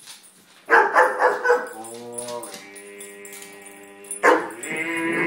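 Weimaraner barking in loud bursts about a second in and again near the end, with drawn-out whining, howl-like notes between, reacting to a voice spoken through a cardboard wrapping-paper tube.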